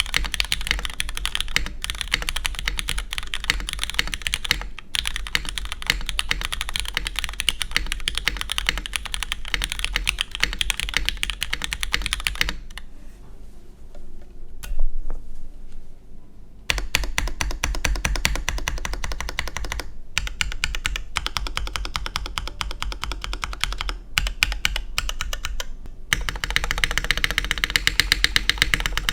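Fast typing on a Merisi 500c 65% keyboard with lubed Cherry MX Black linear switches on a carbon fibre plate and GMK keycaps: a dense run of keystroke clacks. About halfway through the typing breaks off for a few seconds of scattered strokes and one louder hit, then resumes.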